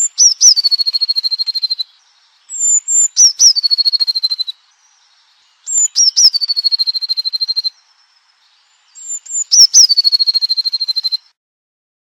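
Blue tit singing: four songs about three seconds apart. Each song is two or three high, thin notes followed by a lower, fast trill.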